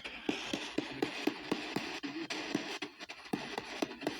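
P-SB7T spirit box sweeping the AM band at its 250 ms rate: choppy radio static broken by a click about four times a second, with brief scraps of station sound between them.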